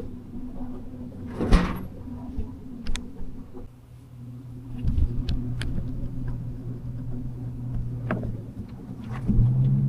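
Scattered knocks and clicks with a short loud rush about a second and a half in, over a low steady hum.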